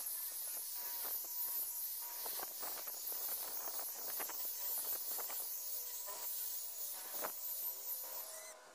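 Rotary polisher with a wool pad spinning at about 1500 RPM against car paint, cutting with rubbing compound to remove scratches and swirl marks: a steady high hiss that cuts off shortly before the end.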